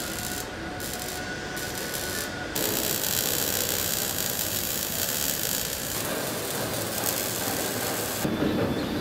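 Steady hissing noise in a car body shop while welding is under way on body panels and a body shell. It gets louder about two and a half seconds in and changes character twice more.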